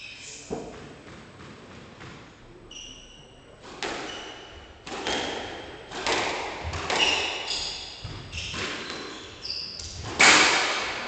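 Squash rally: the ball smacking off rackets and the court walls in sharp echoing hits about a second apart, with short high squeaks of court shoes on the wooden floor. The loudest smack comes near the end.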